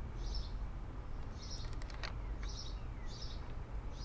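A small bird chirping in the background: short high chirps repeated about once a second. A few faint clicks come in between.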